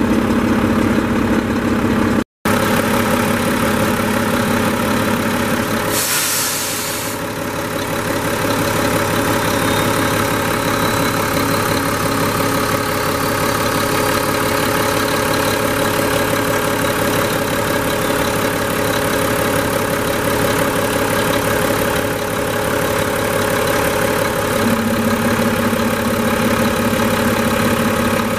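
Mack MP7 inline-six diesel idling steadily, heard close up in the open engine bay. A short hiss comes about six seconds in, and the sound drops out for an instant about two seconds in.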